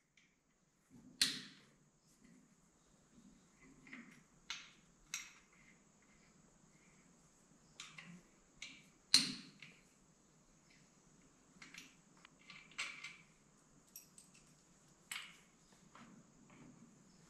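Scattered small clicks, taps and knocks from hands working on the cables and plastic and metal fittings of a Bluerock core drill on its stand. Two sharper clicks stand out, about a second in and about nine seconds in.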